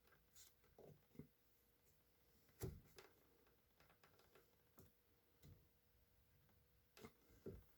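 Faint, scattered clicks and taps of small parts being handled while a chainsaw's fuel line is worked onto its fuel filter, the loudest tap about two and a half seconds in.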